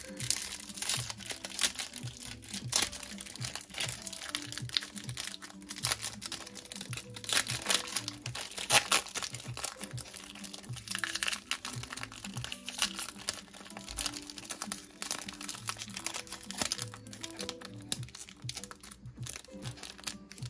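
Foil wrapper of a Japanese Pokémon Fossil booster pack crinkling over and over as hands work it open, with background music.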